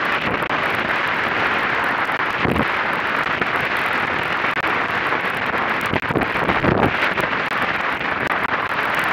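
Wind rushing over an action camera's microphone, mixed with water hissing along the hull of an A-class catamaran sailing upwind at about 8 knots. A few low gusty thumps come about two and a half seconds in and again around six to seven seconds.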